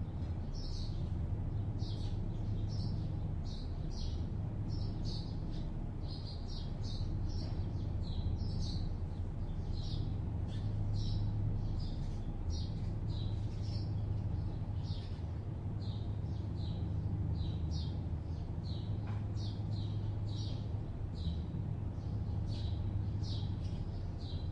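Small birds chirping: short high chirps, roughly one or two a second, over the steady low hum of distant city traffic.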